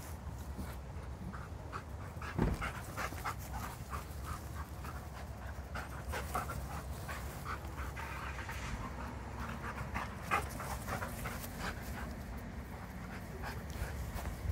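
Dogs panting in quick, short breaths as a Sheepadoodle puppy and an Old English Sheepdog play together. A single thump about two and a half seconds in.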